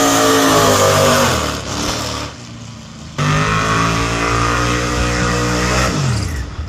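Drag-racing car engine at full throttle, its pitch falling as it passes and fades away. After a sudden cut, another engine runs loud and steady at high revs, then drops in pitch and level near the end.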